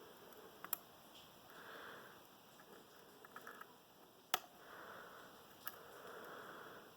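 Lock pick and tension wrench working the pins inside a challenge lock, making a few sharp metallic clicks and ticks. The loudest click comes about four seconds in, with a little run of faint ticks just before it.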